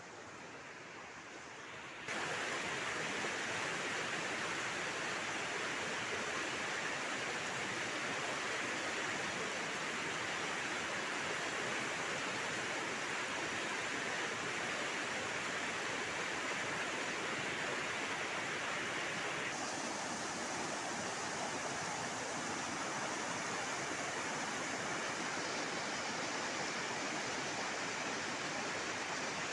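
Rushing river water, a steady noise with no distinct events, that jumps louder about two seconds in.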